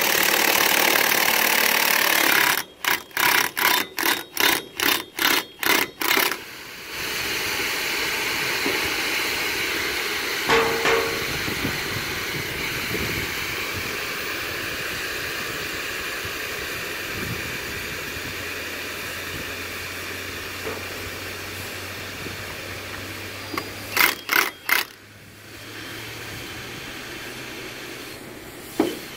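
Cordless impact drill running on the centre nut of a rail tank car manway, first one long run, then about ten short trigger bursts. Then a long hiss of pressure venting from the tank as the loosened manway is burped, slowly fading, with four more quick bursts of the impact drill near the end.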